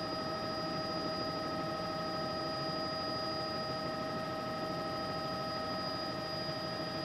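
Steady noise of a news helicopter heard from on board: an even rush with several fixed whining tones over it.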